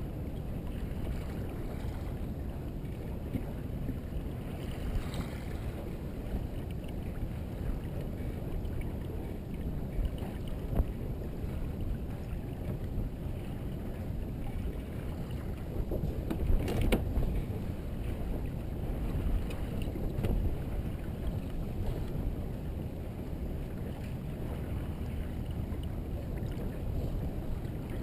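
Merit 25 sailboat under sail: a steady low rumble of wind on the microphone and water along the hull. A single brief knock comes about two-thirds of the way through.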